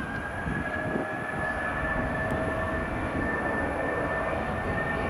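Jet airliner engines running: a high whine that climbs slightly in pitch and then holds steady over a broad rumble, growing a little louder about a second in.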